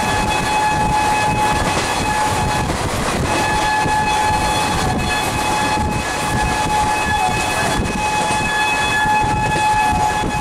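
Moving passenger train, heard from on board: a steady rumble, with a high-pitched whining tone over it for most of the time. The tone breaks off briefly about three seconds in.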